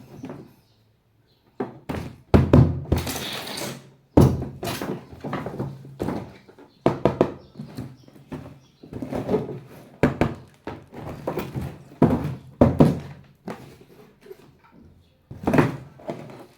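Toy packaging and parts being handled: irregular thunks and knocks, with a short rustle about three seconds in.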